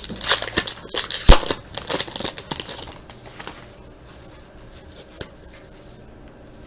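Wrapper of a 2011 Bowman Platinum baseball card pack being torn open and crinkled. Dense crackling and sharp snaps over the first three seconds or so, then only faint handling ticks.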